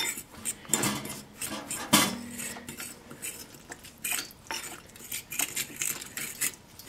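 A whisk clinking and scraping against a ceramic bowl while stirring chickpea-flour batter, in quick irregular clicks.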